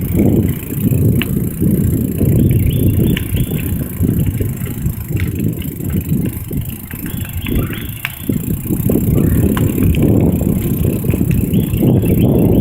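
Bicycle riding a forest trail: steady rumble of tyres and wind on the microphone, with scattered clicks and rattles from the bike. The rumble eases a little about seven seconds in, then picks up again.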